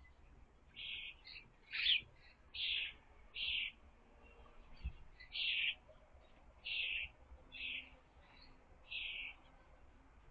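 A bird calling over and over: about eight short, high notes spaced roughly a second apart, with a pause of about two seconds in the middle.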